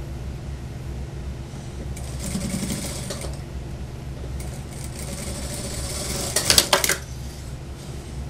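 Industrial sewing machine stitching a jacket in two short runs, about two seconds in and again from about four and a half seconds. The second run ends in a few sharp clacks, the loudest sounds here. A steady low hum runs underneath.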